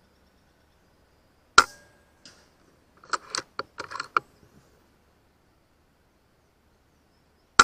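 FX M4 PCP air rifle firing twice, about six seconds apart. Each shot is a sharp crack with a brief ringing after it. Between the shots comes a quick run of metallic clicks from the rifle's action being cycled to chamber the next pellet.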